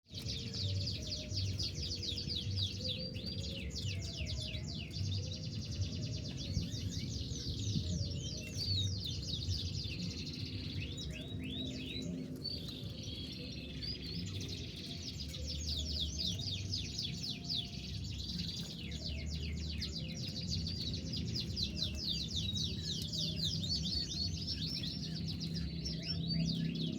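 Domestic canary singing a long, rolling song of fast trills and chattering phrases, with short pauses between passages, over a steady low background hum.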